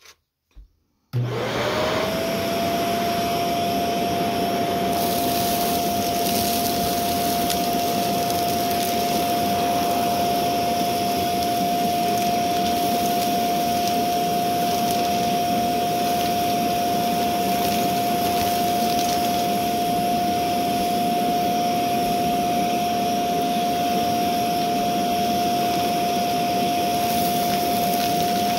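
Shark Navigator vacuum cleaner switched on about a second in, after a few soft clicks. Its motor whine rises quickly and settles into a steady high tone over a rushing airflow noise, and it runs evenly from there.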